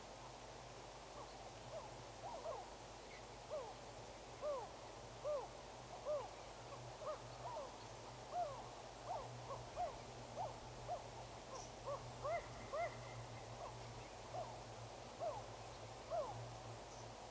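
Short hooting animal calls repeated about once or twice a second, each a quick rise and fall in pitch, starting about a second in and stopping near the end, over a steady low hum.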